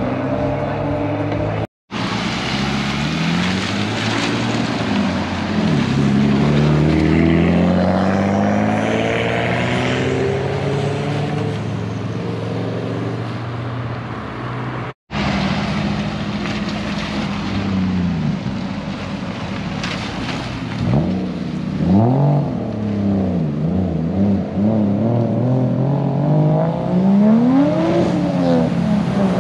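Cars accelerating away and passing by on a wet road, engines revving up and down through the gears over steady tyre hiss from the wet pavement. The sound cuts out abruptly twice, about two seconds in and about halfway.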